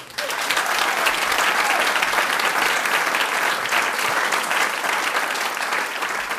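Audience applause, a dense patter of many hands clapping that breaks out suddenly at the start and keeps up steadily.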